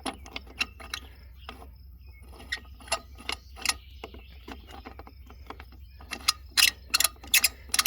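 Railroad jack being worked by its lever: sharp metallic ratchet-and-pawl clicks, scattered at first, then louder and quicker, about three a second, near the end.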